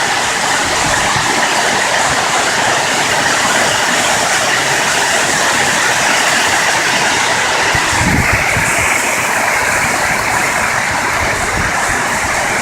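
Heavy rain pouring down on the roof of a shed: a loud, steady, dense rush of noise, with a slight change in its tone about eight seconds in.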